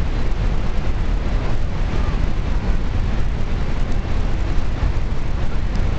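Steady, deep rush of Niagara Falls' falling water, an unbroken wall of noise with no separate events.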